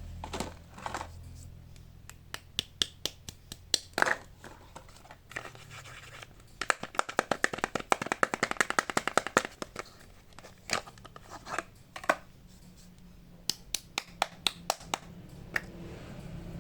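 Soap bars being unwrapped by hand: scattered sharp taps and clicks with crinkling and tearing of the wrappers, and a dense run of rapid scratchy clicks in the middle.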